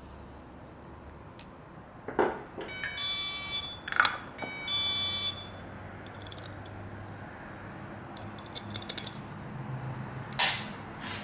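Hand work on a GY6 go-kart carburetor on a steel bench: sharp metal knocks about two and four seconds in, a quick run of small clicks near nine seconds, and a louder knock near the end. Two high beeps, each about half a second long, sound at about three and five seconds in.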